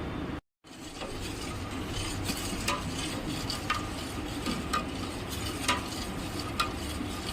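Herbal cough syrup cooking in a pan with a steady hiss, stirred with a spoon that knocks against the pan about once a second. The sound breaks off briefly near the start.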